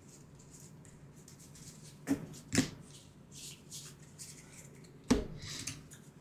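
Small card-stock game cards being sorted by hand into piles: soft sliding swishes of cards, with sharp taps about two seconds in, again half a second later, and once more near the end.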